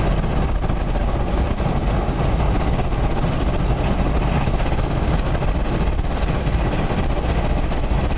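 Steady loud noise inside a moving car in a thunderstorm: low wind and road rumble with rain hitting the windshield and roof in a dense crackle.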